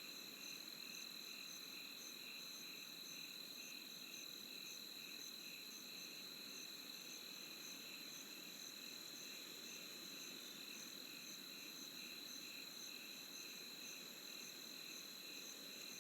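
A chorus of insects calling: one steady high trill, with other chirps pulsing evenly a few times a second over a faint hiss.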